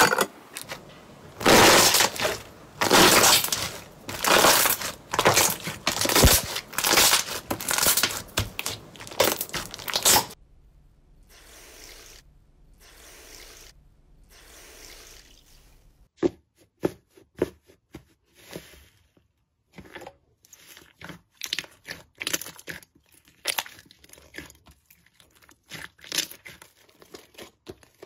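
Slime being squeezed and pressed by hand: dense, loud crackling and crunching bursts for about the first ten seconds. After a quieter pause, a run of sharp separate clicks and pops follows for the rest of the stretch.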